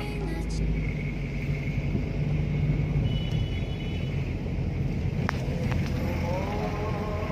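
Steady low rumble of a car driving, heard from inside the cabin, with a single sharp click about five seconds in.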